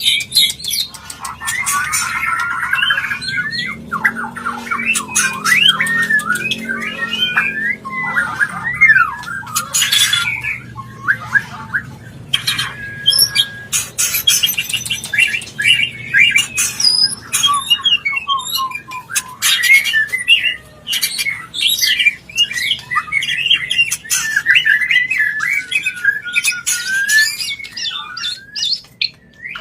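White-rumped shama (murai batu) singing in breeding condition, the mating song used to bring other shamas into breeding mood. It is a continuous stream of rapid whistled sweeps and trills mixed with harsh squawking notes and sharp clicks.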